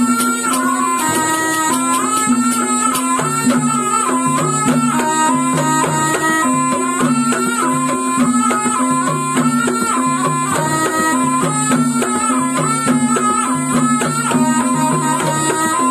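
Ebeg dance accompaniment: a slompret, the Javanese double-reed shawm, plays a short reedy melody over and over above drums and lower repeating gamelan notes.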